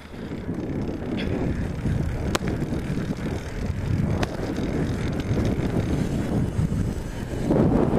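Wind buffeting the microphone of a handlebar-mounted camera on a bicycle riding down a paved street: a steady low rumble, with a few sharp ticks.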